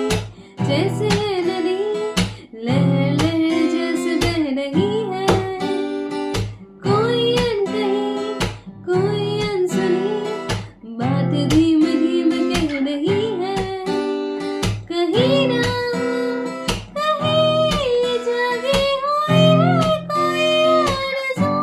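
Acoustic guitar strummed and plucked, accompanying a woman singing a wordless melody line that wavers in pitch, with vibrato stronger toward the end.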